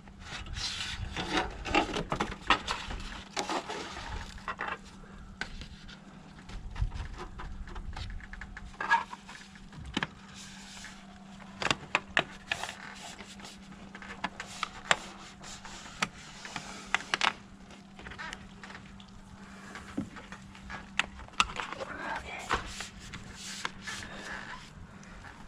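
A bent aluminum trim piece being handled and fitted into place, with scattered sharp clicks, taps and rustling of thin sheet metal. A steady low hum runs beneath.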